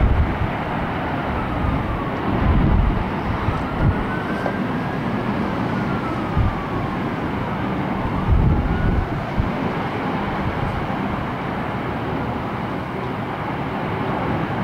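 Wind buffeting the microphone in low gusts over a steady rushing background, with a distant emergency siren wailing, its pitch rising and falling slowly.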